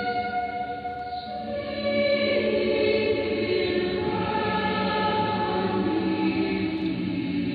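Church choir singing held chords, received as an AM longwave radio broadcast. The singing dips about a second in and swells again about two seconds in.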